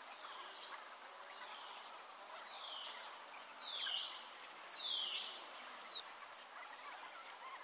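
Sped-up room sound: a steady hiss with a high, squeaky warbling tone that sweeps down and back up several times, about a second apart, then cuts off suddenly about six seconds in.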